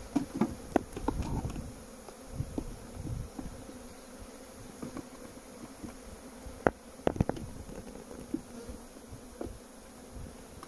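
Honeybees buzzing in a steady hum over an open hive, with wooden frames clicking and knocking as they are set into the box: several clicks in the first second or so, and a loud sharp knock about two-thirds through followed by a few more.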